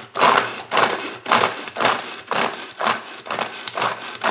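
Tupperware Turbo Chef pull-cord chopper worked fast, about two pulls a second. Each pull brings a short burst of whirring and rattling as the garlic cloves spin around the plastic bowl against the blade guard, knocking their skins loose.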